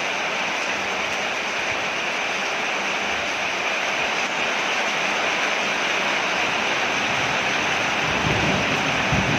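Steady heavy rain falling on a porch, an even hiss of water, with a low rumble coming in near the end.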